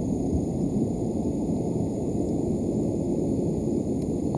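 Steady low outdoor rumble, much like wind on the course microphone, running evenly with no clear strike in it.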